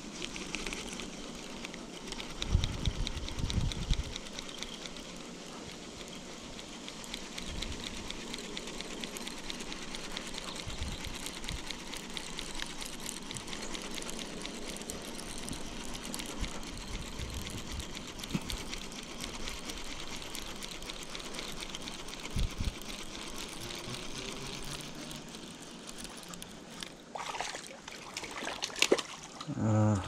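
Baitcasting reel being cranked steadily, its gears giving a fast, even ticking as line is wound in on a hooked fish, with a few low handling bumps in the first few seconds.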